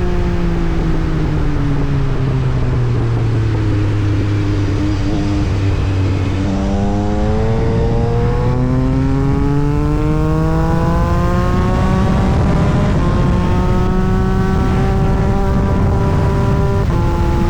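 Yamaha MT-09 SP's three-cylinder engine through an Austin Racing aftermarket exhaust. Its revs fall away for about six seconds, then step up and climb with another step change partway, hold fairly steady, and step once more near the end, like a bike being ridden through its gears.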